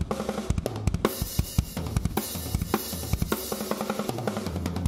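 Acoustic drum kit played in a busy groove, with kick drum, snare and cymbal strikes several times a second. Underneath the drums runs a backing track with steady pitched notes.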